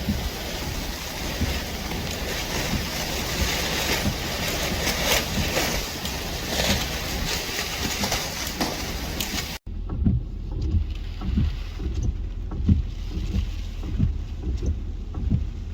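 Strong storm wind and crashing surf as a loud, full rushing noise with gusts. Partway through it cuts off abruptly and gives way to low, gusty wind buffeting on the microphone, with the hiss mostly gone.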